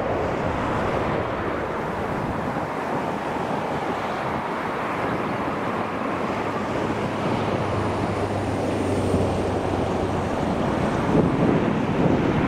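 Large jet airliner engines running: a steady rushing noise that swells slightly near the end, with wind buffeting the microphone.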